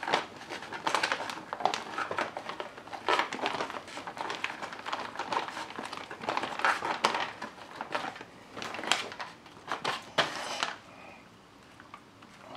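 A silicone spatula stirs rehydrating freeze-dried chicken fajita filling inside a foil-lined Mountain House pouch. The pouch crinkles and the spatula scrapes in irregular strokes, which stop about ten and a half seconds in.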